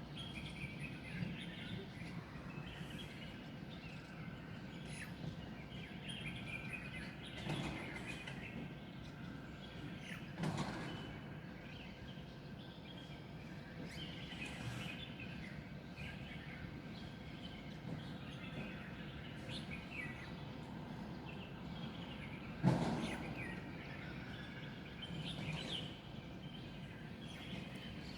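Dawn chorus of many wild birds, with scattered short chirps over a steady background hum of the city. Three dull knocks break in, the loudest near the end.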